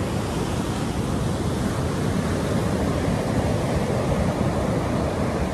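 Ocean surf breaking and washing up a sandy beach, heard as a steady, even wash of noise, with some wind on the microphone.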